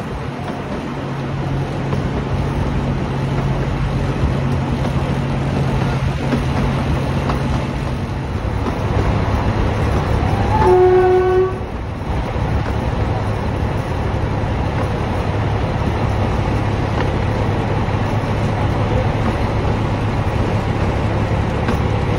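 Narrow gauge diesel locomotive running, its engine drone steady under the rail noise, the engine note dropping slightly about eight seconds in. About ten seconds in, one short horn blast of under a second is the loudest sound.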